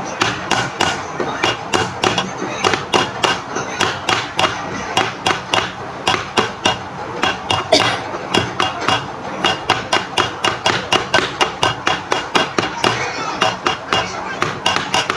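Fast, regular knocking strikes, about four a second, sharp and loud, keeping up without a break.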